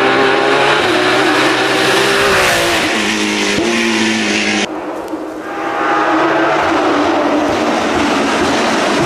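Porsche 911 GT3 race car's engine at high revs as the car passes at speed, its pitch falling about three seconds in. After a sudden cut, the engine comes in again, getting louder as the car approaches at speed.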